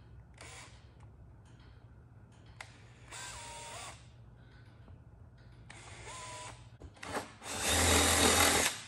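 Power drill with a Forstner bit cutting recesses into a wooden pinball playfield, run in several short bursts. The last burst, near the end, is the longest and loudest.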